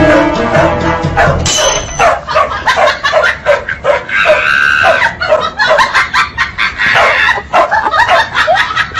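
Dogs barking and yipping in quick short barks, two or three a second, with a longer, higher cry about four seconds in.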